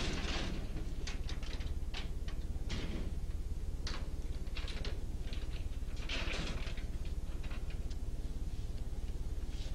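Steady low electrical hum, with scattered short rustles and clicks over it.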